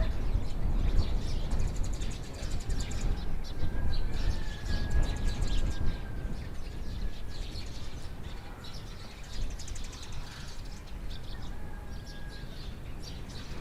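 Small birds chirping and twittering in short rapid trills, over a low rumble that is heavier in the first half.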